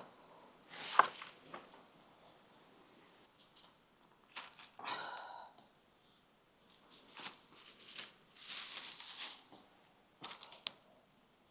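Crisp-skinned whole roasted turkey being torn apart by hand: a series of short crunches, cracks and rips, the sharpest about a second in, with a brief squeak about five seconds in.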